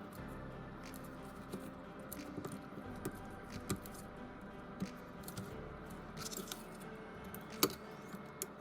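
Scattered small clicks and taps of hands and tools working on a smartphone, over faint background music; one sharper click comes about seven and a half seconds in.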